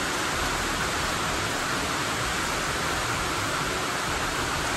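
Rain on a metal barn roof, heard from inside as a steady hiss that is kind of loud.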